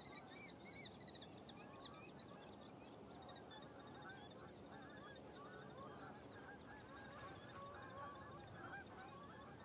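Faint honking from a distant flock of geese: many short calls overlapping throughout, with a few higher-pitched calls in the first second.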